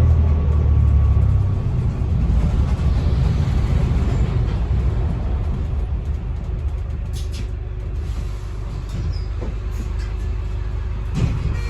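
Running noise of a bus heard from inside: a low engine drone that eases off about a second and a half in, leaving a steady rumble. A short hiss comes about seven seconds in, and a brief knock near the end.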